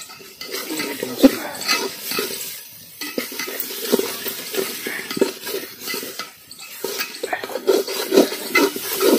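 Metal spatula scraping and clinking against an aluminium handi as a thick spice-and-tomato masala is stirred and fried. The strokes come irregularly, with short pauses about three seconds and six and a half seconds in.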